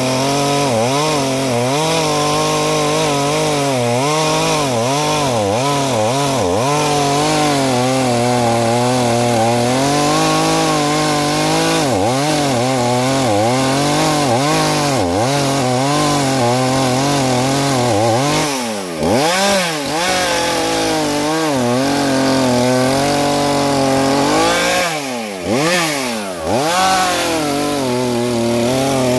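Two-stroke petrol chainsaw running at high revs through wood, its engine pitch wavering as the chain loads up in the cut. Twice in the second half the revs drop sharply and climb back.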